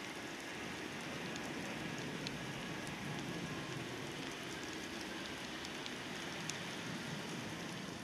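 Steady rain falling, with scattered small drip ticks.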